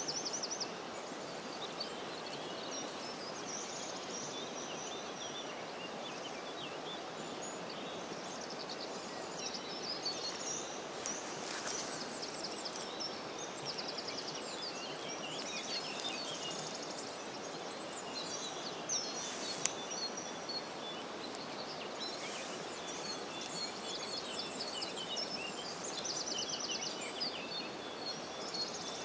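Steady rushing of flowing river water, with small birds chirping and trilling throughout and a brief sharp click about twenty seconds in.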